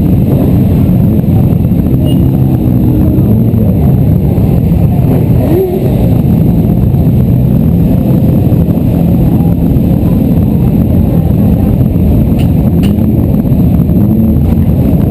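Many motorcycle engines running together in a large group of stopped bikes, several revving up and down at intervals over a steady idle.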